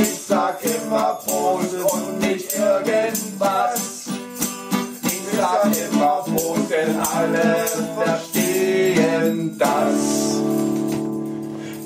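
Instrumental break of a German party song, with a steady beat and jingling hand percussion. About ten seconds in, the music settles into one held chord.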